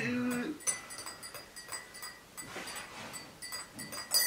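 Light clinks of glasses and dishes, scattered through, with the sharpest clink near the end. A short held voice sound comes at the start.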